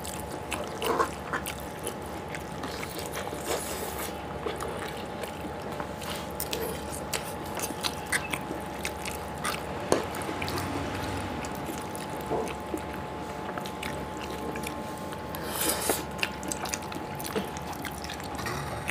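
Close-up eating sounds: Maggi noodles being slurped and chewed, with forks clicking and scraping against the serving tray, a louder click about ten seconds in and a cluster near sixteen seconds. A steady hum runs underneath.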